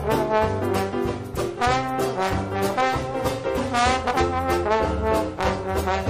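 Background jazz music led by brass, trombone and trumpet, over a steady bass beat.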